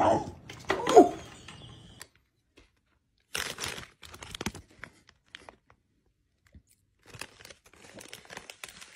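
A short, loud call with a bending pitch about a second in. Then a foil snack bag crinkles in short bursts as it is handled and a cat paws at it.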